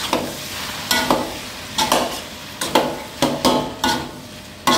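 Metal spatula and ladle scraping and knocking against a wok while stir-frying char kuey teow flat rice noodles, in irregular strokes roughly twice a second, over a steady sizzle from the hot wok.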